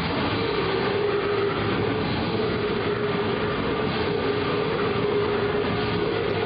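Death metal band playing live: heavily distorted guitars and drums in a dense, unbroken wall of sound, with a held, slightly wavering guitar note over it.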